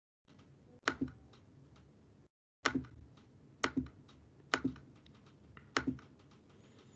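Computer mouse clicking: five sharp clicks about a second apart, each a quick pair of ticks, over faint hiss.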